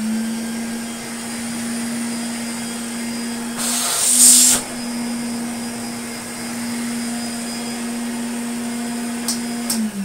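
Hoover Constellation 867A vacuum cleaner motor running steadily with an even hum, sounding quite nice after the motor has been apart and cleaned. About four seconds in there is a brief louder hiss of air with a slight rise in pitch. Near the end it is switched off with a click and starts to wind down.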